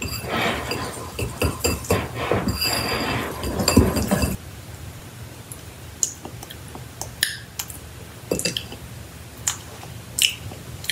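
Wire whisk beating powdered sugar icing in a bowl: rapid clinking and scraping against the bowl for about four seconds, then it stops, leaving only a few light clinks.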